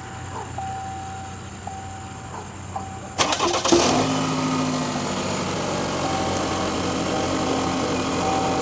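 2015 Chevy Malibu's engine cranked and caught about three seconds in, then idling steadily. Before it starts, a few short electronic beeps at one pitch sound over a low hum.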